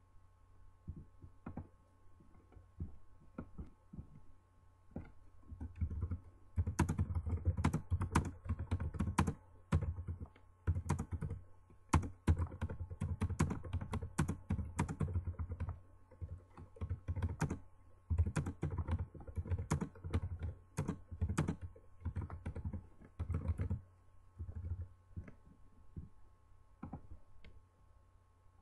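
Typing on a computer keyboard: quick runs of keystrokes in several bursts through the middle, with scattered single key clicks near the start and end. A faint steady hum lies underneath.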